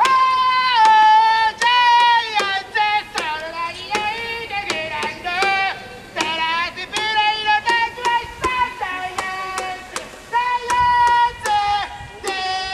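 A man singing a cheering chant in a loud, high voice, in held notes that slide between pitches, with sharp claps at a steady beat, about two or three a second, from a pair of plastic cheering megaphones struck together.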